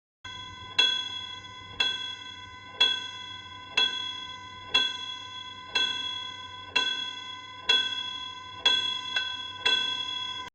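Horror-film tension sound effect: a ringing, bell-like tone struck about once a second over a low steady drone, with an extra quick strike near the end. It starts abruptly and cuts off suddenly.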